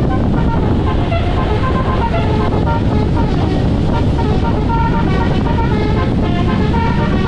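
Heavy truck engine and road rumble, with a tune of short, quick high notes over it from a musical truck horn.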